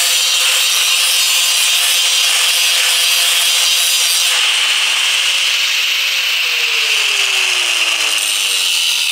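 Angle grinder with a thin cut-off wheel cutting through a steel bolt held in a vise, a loud steady grinding whine. The motor's tone sinks in pitch over the last few seconds as the wheel works through the cut.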